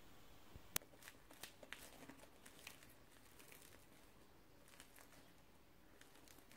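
Faint crackling of a crisp fried bread stick's crust as fingers pull it apart: one sharp snap under a second in, then a scatter of lighter crackles, against near-silent room tone.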